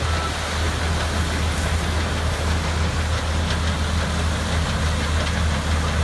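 Combine harvester working through standing wheat: a steady low engine drone under an even hiss from the running machine.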